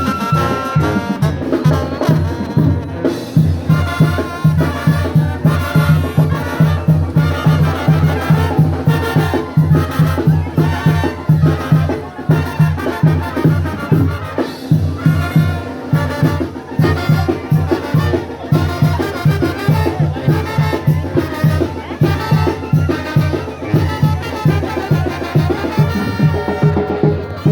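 Brass band music: trumpets and other brass over a steady, fast bass-drum beat, in a Latin dance style.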